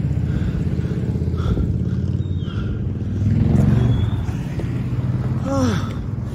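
A motor vehicle's engine running close by: a steady low rumble that swells about three seconds in. A short sound falling in pitch comes near the end.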